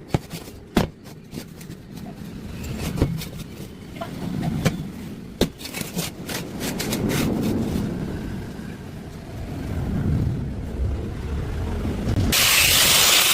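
Sharp knocks and clicks of steel square pipe being handled over a low rumble, then near the end an angle grinder cuts into the steel with a sudden loud, steady hiss.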